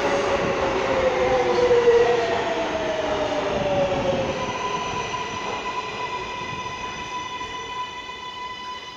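An R143 subway train braking into a station. Its motor whine falls in pitch over the first few seconds, then settles into steady high tones as the train rolls to a stop, with rail and wheel noise fading away.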